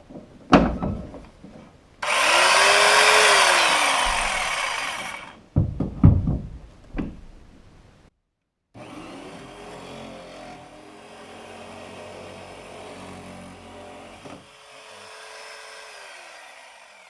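Electric jigsaw cutting into a wooden boat bulkhead. It runs in a loud burst with the motor speeding up and winding down, then comes a few knocks, then a longer, quieter run that winds down near the end. The blade has worked loose, the owner thinks, which makes the cut kick off on an angle.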